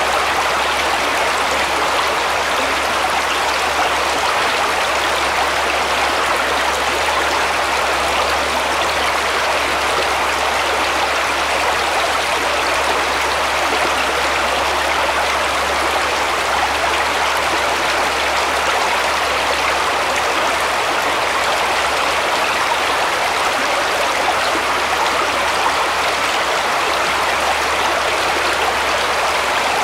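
Small woodland brook flowing over stones and a shallow riffle: a steady, even rush of running water with no changes.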